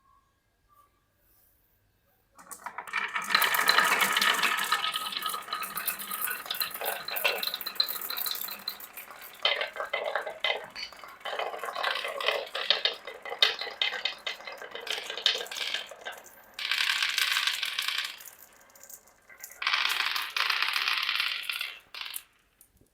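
Many marbles rolling and clattering down a wooden marble run, a dense rattle of clicks starting about two seconds in, then coming in shorter bursts, the last two near the end.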